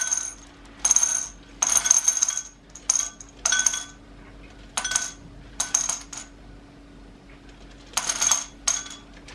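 Large candy-coated chocolate M&Ms shaken into a bowl on a kitchen scale in about eight short bursts, each a quick clatter with the bowl ringing, with a pause of about two seconds in the middle while the amount is weighed out to just over 80 grams.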